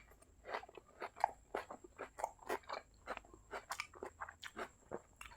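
Close-miked chewing of a spicy boiled-egg chaat, a steady run of short crunchy bites and chews about three to four times a second.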